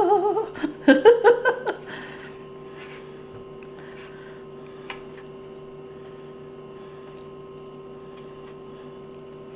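A few words of a woman's speech at first, then quiet room tone: a faint steady hum, with a single soft click about five seconds in.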